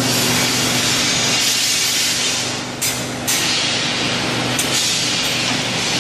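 TJK G2L32 CNC vertical rebar bender running and bending a steel bar: a steady machine hum under a constant hiss, which dips briefly about three seconds in.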